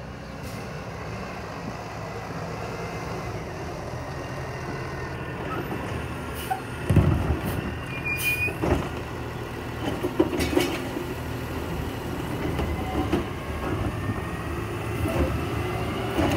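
Automated side-loader garbage truck: its diesel engine running as it pulls up, then its hydraulic arm gripping, lifting and shaking out a plastic wheeled cart. There is a loud clank about seven seconds in, then more knocks and bangs as the cart is emptied into the hopper.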